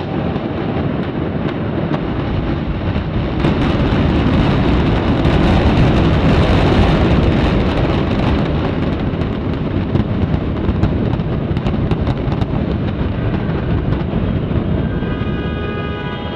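Rumble of several buildings collapsing at once in a demolition, with crackles of falling debris throughout. It swells a few seconds in and eases off near the end.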